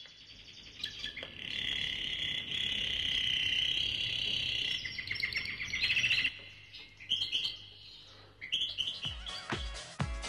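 Birds chirping in a dense chorus with quick trills. About nine seconds in, the four-on-the-floor kick drum of a house track starts, about two beats a second.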